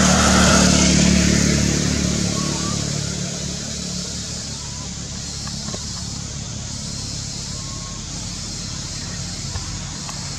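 A motor vehicle's engine running nearby, loudest in the first two seconds, then fading to a steady low hum.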